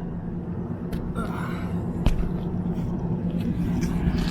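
Steady low hum of rooftop air-conditioning equipment running, over a low rumble, with a couple of short sharp clicks about one and two seconds in.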